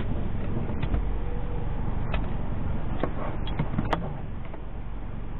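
Steady road and engine noise inside a moving car, picked up by a dash cam, with a few sharp clicks between about one and four seconds in.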